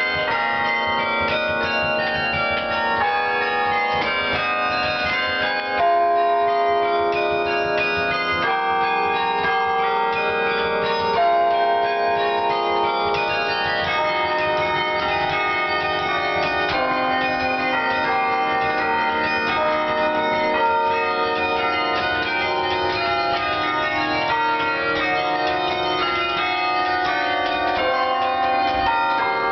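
Carillon bells played from the baton keyboard, heard from inside the playing cabin: a tune of struck bell notes and chords, each note ringing on and overlapping the next. There are a few louder strikes about six and eleven seconds in.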